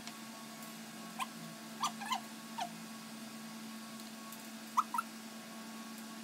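Small dog whimpering: four short squeaky whines in the first half and two close together near the end, over a steady low hum.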